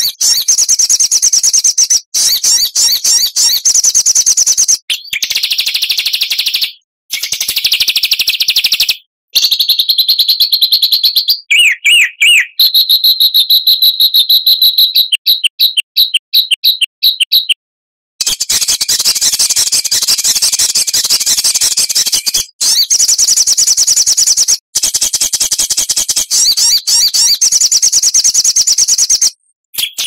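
Songbird song: fast, dense, high-pitched chattering and trilling in rapid strings of repeated notes, changing pitch from phrase to phrase. The phrases stop abruptly at several edits, with a brief gap about two-thirds of the way through.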